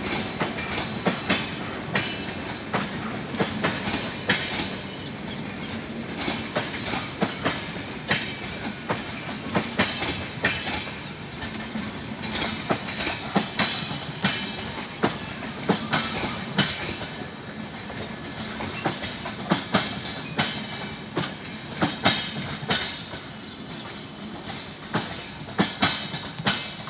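Indian Railways passenger coaches rolling past, their wheels clattering over rail joints in a steady run of sharp clicks over a rumble.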